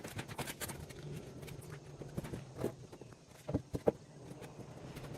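Scattered knocks and taps, with two louder knocks about three and a half seconds in, over a faint low steady hum.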